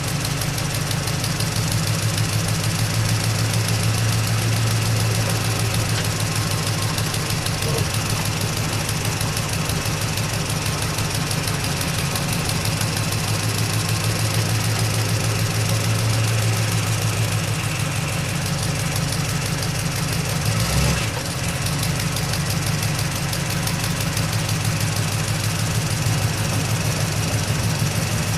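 Old truck engine idling steadily with an even, rapid chugging. A single thump, and a brief dip in the sound, come about twenty-one seconds in.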